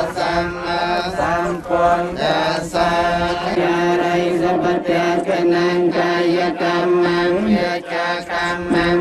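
Buddhist chanting: voices intoning together on long-held notes.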